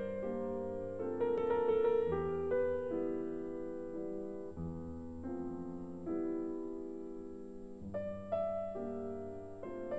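Slow solo piano music, with notes and chords struck about once a second or two and left to ring into each other.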